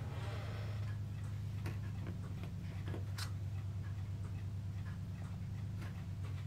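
Faint regular ticking over a steady low hum, with a couple of slightly louder soft clicks about one and a half and three seconds in.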